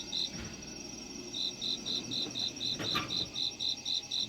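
Cricket chirping in a steady rhythm, about four high chirps a second, with a short pause near the start. A faint steady trill runs above it, and there is a light knock about three seconds in.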